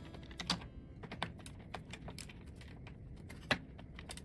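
Hand screwdriver driving a bolt back into the spinning wheel's frame: a string of irregular light clicks, the loudest about three and a half seconds in.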